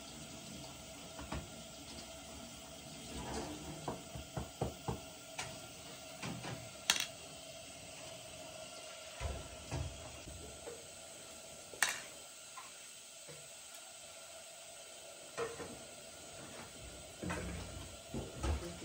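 Hands working with food and a metal cooking pot: scattered light clicks and knocks of the pot and utensils, with soft handling noises in between, over a faint steady background hum.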